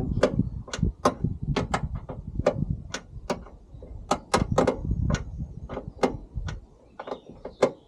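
Spanner working the hinge bolts of a car door: sharp metal clicks and knocks coming irregularly, two or three a second, over a low rumble of the door being handled.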